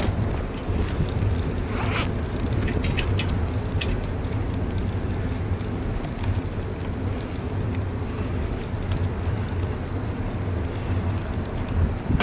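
Wind rushing over the microphone and low road rumble from a moving bicycle with an action camera mounted on it. A few short clicks and rattles come about two to three seconds in.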